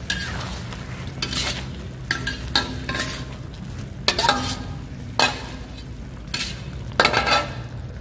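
Metal spatula scraping and clanking against a steel wok during stir-frying, with food frying in the pan throughout. About nine sharp strikes come at uneven intervals, several with a short metallic ring.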